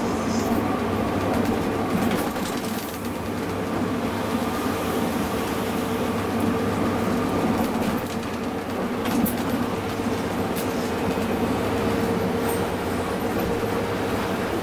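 Interior cabin noise of a Scania coach cruising on a highway: a steady engine drone and road noise with an even pitch, with a few light clicks around the middle.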